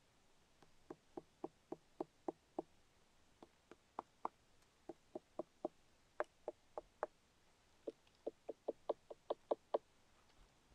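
Fingers tapping on the hard, woody shelf of a bracket fungus growing from a tree trunk: short, hollow-sounding knocks in several quick runs of about three or four a second, the last run the fastest and loudest.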